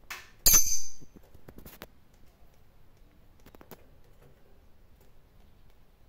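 A sharp metallic clink on the wire cage bars about half a second in, ringing briefly at a high pitch, followed by a few faint clicks.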